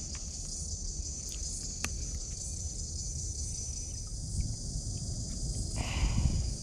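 Insects chirring steadily in a high, even band over a low rumble, with a few small clicks about a second or two in.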